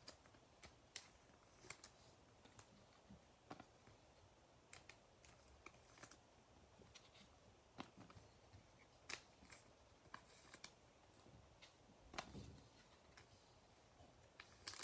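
Near silence with faint, scattered clicks and light rustles of baseball trading cards being handled and set down on a tabletop.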